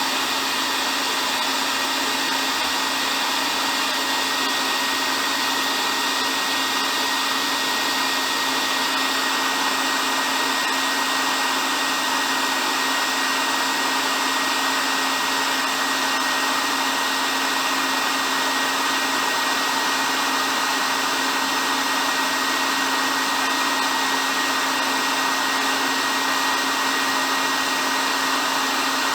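Hair dryer running continuously: a steady, even rush of blown air with a constant high whine from its motor, used as white noise to soothe a baby to sleep.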